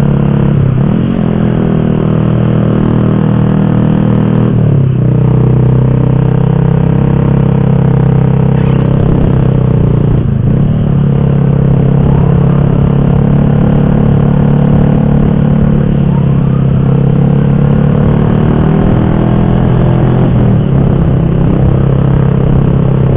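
Motorcycle engine running steadily while riding, its note dipping briefly a few times.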